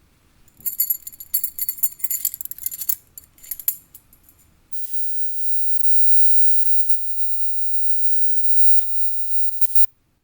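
Quick rattling and jingling for about four seconds, then a steady hiss lasting about five seconds that cuts off suddenly.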